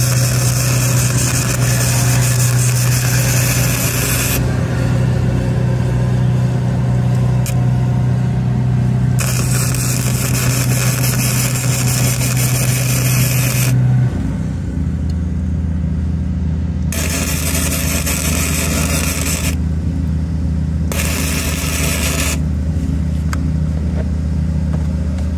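Flux-core MIG welding: about four welds of a few seconds each, the arc crackling and hissing and stopping sharply between them. Under it an engine runs steadily, its hum dropping to a lower pitch about halfway through.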